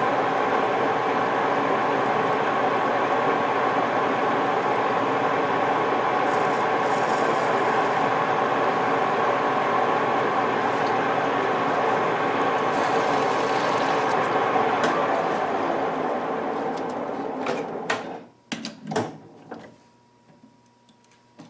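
Metal lathe running steadily while rough-turning a dowel, then spinning down to a stop about three quarters of the way through. A few clicks and knocks of metal follow near the end.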